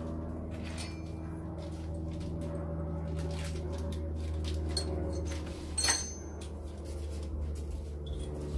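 Steady low background hum with scattered small clicks, and about six seconds in a sharp metallic clink with a brief high ring: steel hand tools knocking together as a socket extension bar is fetched.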